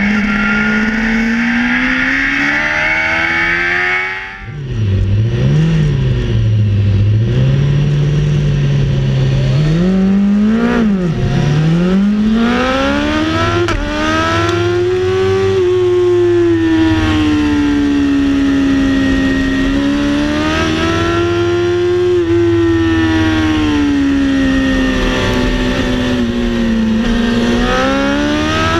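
Race car engine heard from inside the car on track, its note rising and falling as it accelerates, shifts and slows for corners. About four seconds in it drops off sharply and stays at low revs for several seconds before climbing hard again.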